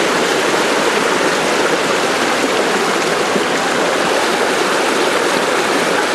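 Fast-flowing floodwater rushing through a flooded street: a steady, unbroken rushing noise.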